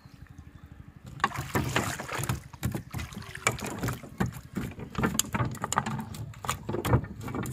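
A freshly caught fish flopping on the wooden deck boards of a boat, slapping and knocking against the planks in quick irregular bursts, starting about a second in.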